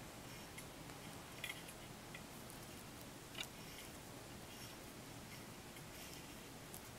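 Plastic lanyard lace (gimp) being handled and pulled tight while weaving: a few scattered soft clicks and crinkles, the sharpest about three and a half seconds in, over a faint steady hiss.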